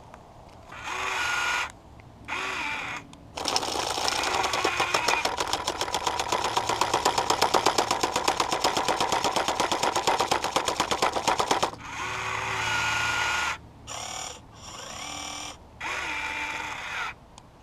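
Modified jackhammer attachment on a Huina 1580 V4 RC excavator hammering rapidly and evenly for about eight seconds while it chips at ice. Before and after come short whirring bursts of the model's motors, rising and falling in pitch, as the arm moves.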